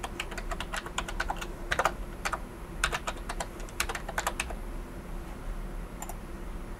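Typing on a computer keyboard: a quick, irregular run of key clicks lasting about four and a half seconds, then a single click near the end, over a faint steady hum.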